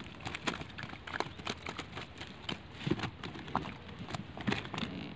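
Irregular light knocks, taps and rattles from a wire-mesh fish trap holding live fish on a boat deck.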